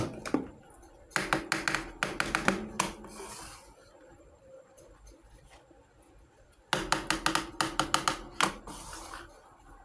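Miniature toy kitchen pieces clattering and clicking together as they are handled, in two bursts of quick clicks a few seconds apart, each ending in a short rustle.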